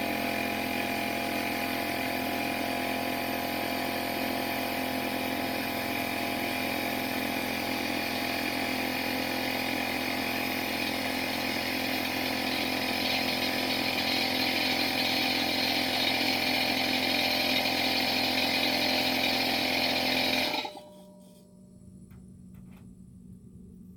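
Electric air compressor running steadily with a constant motor hum, then shutting off abruptly near the end, followed by a few faint clicks.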